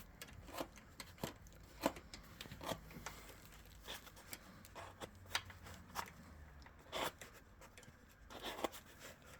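Allen key working the bolts of an adjustable bicycle stem as its end caps are screwed back in and tightened: faint, irregular metal clicks and small scrapes.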